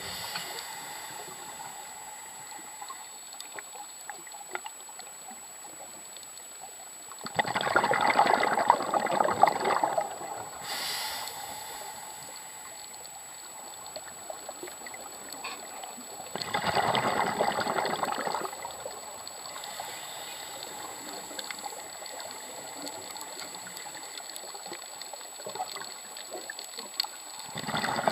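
Scuba diver's exhaled bubbles from a regulator, heard underwater: two bubbling bursts of a second or two, about nine seconds apart, with a third starting at the end, over a steady underwater hiss. A brief high hiss follows the first burst.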